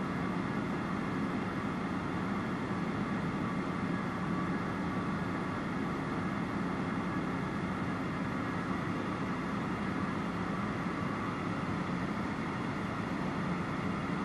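Steady drone of a high-wing light aircraft's piston engine and propeller in cruise flight, mixed with rushing airflow.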